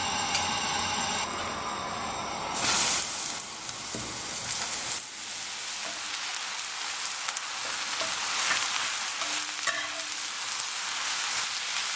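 Pieces of shaggy parasol mushroom sizzling as they fry in oil in a pan. The sizzle suddenly gets louder about two and a half seconds in, then settles into a steady hiss.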